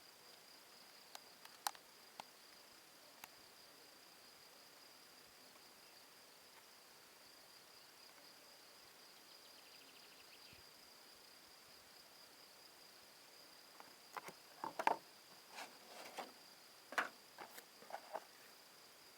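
Scattered sharp clicks and light knocks of small objects being handled, clustered near the end, over a steady faint high-pitched whine.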